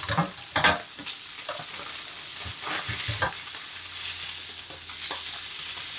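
Black bream fillets sizzling in butter in a frying pan, with sharp knocks and scrapes of the spatula and pan, the loudest about half a second in and more around three seconds in, as the fish is basted.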